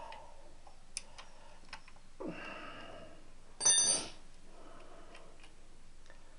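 Metal engine parts and tools being handled on a workbench: a few light clicks and a short scrape, then a loud metallic clink that rings briefly a little before four seconds in.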